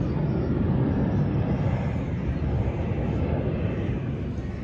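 Low engine rumble of something passing, swelling to its loudest a second or two in and then easing off.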